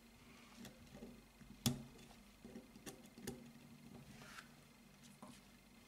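A small steel pick tapping and clicking against a spring and the small steel parts of a Smith & Wesson 22 Victory pistol frame as the spring is pressed down into place. There are a few faint metallic clicks, with the sharpest about a second and a half in.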